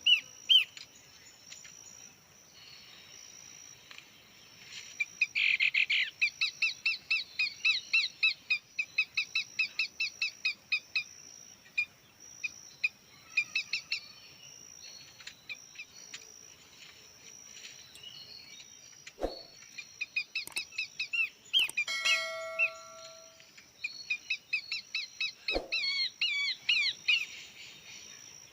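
Small birds chirping in long runs of fast, evenly repeated notes, with a steady high-pitched drone beneath. About two-thirds of the way through, a brief ringing tone sounds.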